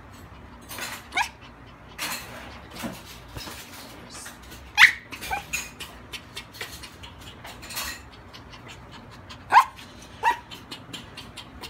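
Small puppy giving short, sharp yips, about five in all, the loudest about five and nine and a half seconds in, with scattered small clicks and scratches between them.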